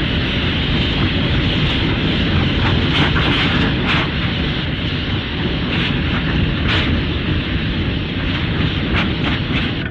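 Showa-era Gamera film sound effect of a steady jet-like rushing roar with scattered crackles, ending abruptly. It is typical of Gamera's jet-propelled flight.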